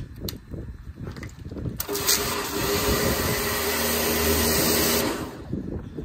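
A couple of clicks as a green nozzle is pushed onto the quick-release fitting of a Kärcher-fit short trigger gun, then about two seconds in the pressure washer fires: a steady hiss of the water jet against a concrete fence panel over the pump's running hum, lasting about three seconds before it stops.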